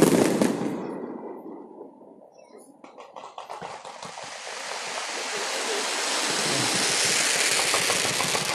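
Fireworks crackling, dying away about two seconds in, then a dense hissing crackle of fireworks builds back up and holds.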